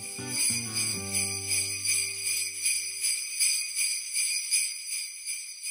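Sleigh bells shaken in a steady rhythm, over a few low sustained notes that fade out about three seconds in; the bells grow fainter near the end.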